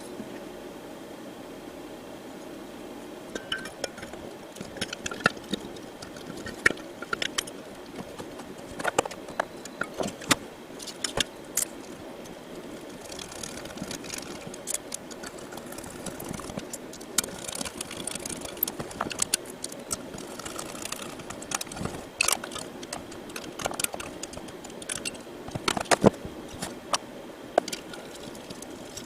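Irregular clicks, taps and knocks of the diesel heater's metal and plastic parts and fasteners being handled and fitted back together, over a steady hum.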